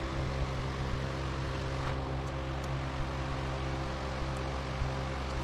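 A steady mechanical hum with a low drone and an even background hiss, with a few faint light clicks.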